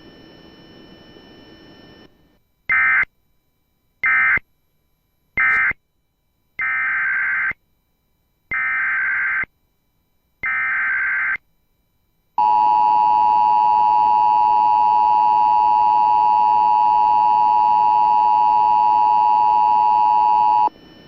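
Emergency Alert System tones: three short data bursts that mark the end of one alert, then three longer data bursts that open the next, then the steady two-tone attention signal held for about eight seconds.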